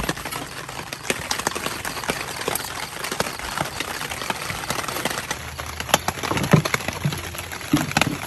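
Irregular clicks and knocks of a kitchen knife and metal tongs on a wooden cutting board as grilled meat is sliced, over a steady background hiss.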